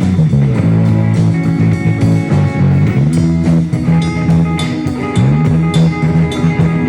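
Band playing an instrumental rock jam: electric guitar holding sustained notes that bend in pitch several times, over drums with crashing cymbals.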